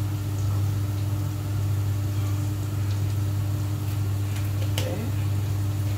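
Kitchen range-hood extractor fan running with a steady low hum. A couple of faint light clicks come about five seconds in.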